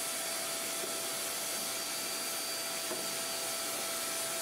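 Vacuum cleaner running steadily, sucking up sanding dust, a rushing of air with a faint steady whine over it.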